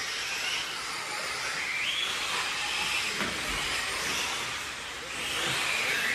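Several 1/8-scale electric off-road buggies running around a dirt track, their electric motors and drivetrains whining, the pitch rising and falling over and over as they accelerate and brake through the corners.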